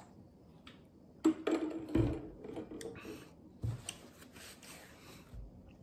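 Drinking from a large plastic water jug, with a couple of knocks about a second in, then a paper napkin rustling and rubbing as mouth and hands are wiped.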